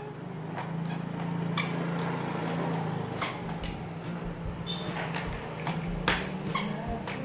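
Irregular sharp plastic clicks and taps, about a dozen, as a baby handles and knocks a small toy, over a steady low hum.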